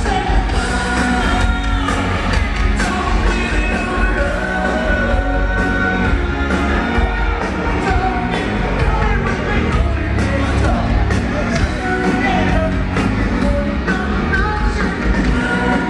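A live rock band playing loudly, with a singer's vocal line over guitars and regular drum hits, heard through a handheld camera microphone.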